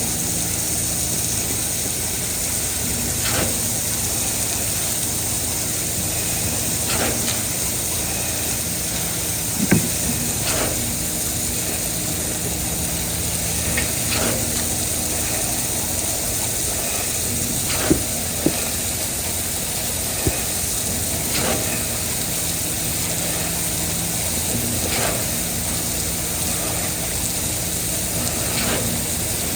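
Concrete pump running steadily, its engine humming under a hiss, with a knock about every three and a half seconds as the pumping cylinders change stroke. A few sharper clanks come about a third and about two thirds of the way through.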